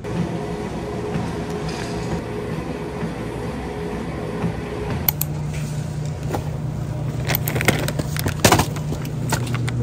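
A motor vehicle running with a steady low hum. From about halfway through, scattered sharp clicks and knocks are heard over it.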